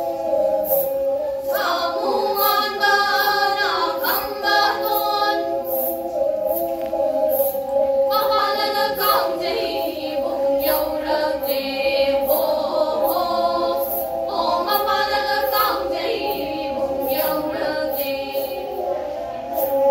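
A group of women singing a Meitei folk song while bowing pena, the Manipuri single-string fiddle with a coconut-shell body: a steady drone from the strings sits under the voices, and the bells on the bows jingle about twice a second with the bow strokes.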